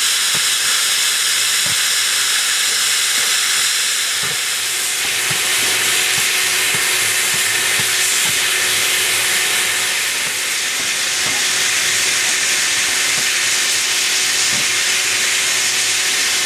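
Steam hissing steadily from a JS-class 2-8-2 steam locomotive, a loud even hiss that holds for the whole stretch.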